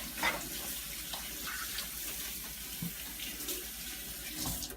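Kitchen sink tap running, a steady rush of water with a few brief splashes, cutting off suddenly at the end.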